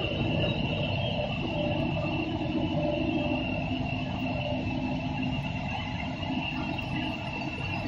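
A 3D-printer filament extrusion line running: a steady, dense machine hum with a steady high whine over it.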